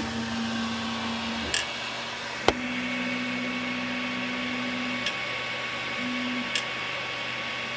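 Creality Ender 6 3D printer homing: its stepper motors whine steadily in three separate moves, with a few sharp clicks between them, over a constant machine hum.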